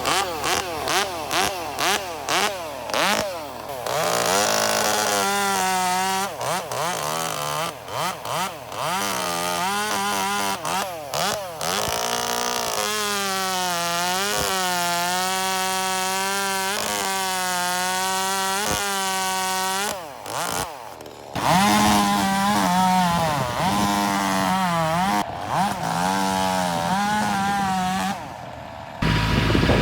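Ported Echo mini chainsaw with a quarter-pitch chain, revved in quick blips and then held at full throttle in the cut, its pitch dipping again and again as the chain loads up. It drops off briefly about two-thirds of the way through and again near the end.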